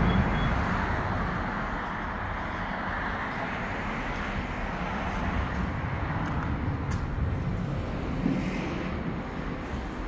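A steady rumbling noise, loudest at the start and easing over the first two seconds, with a few faint clicks.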